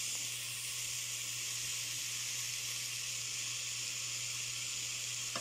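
Diced vegetables sizzling in hot oil in a pot: a steady frying hiss with a low hum beneath it.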